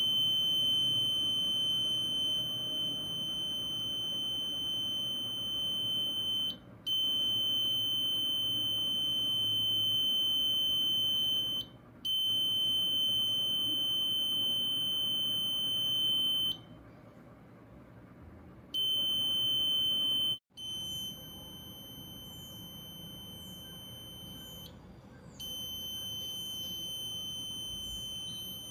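Piezo buzzer of a PIR motion-detector alarm circuit sounding a steady high-pitched tone, switched on each time the sensor detects a hand moving over it. The tone sounds in stretches of a few seconds, cutting out briefly and starting again, and is quieter in the last third.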